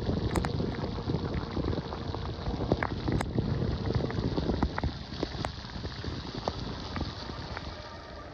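Rain falling in a summer storm, with rumbling wind noise on the microphone and many scattered sharp ticks of drops striking. It eases a little near the end.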